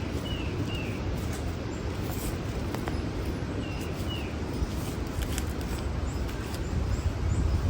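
Outdoor garden ambience: a steady low background rumble with a few short, down-slurred bird chirps, two near the start and two about four seconds in.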